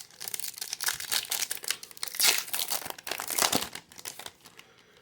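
Plastic wrapper of a trading-card pack being handled and torn open, with dense crinkling that stops about four seconds in.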